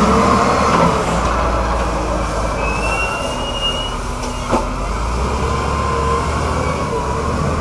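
Heavy diesel engine of a Sinomach wheel loader running as the loader pulls away from the dump truck after emptying its bucket, a steady low rumble. A thin rising whine comes in about three seconds in, and a single sharp knock follows a second and a half later.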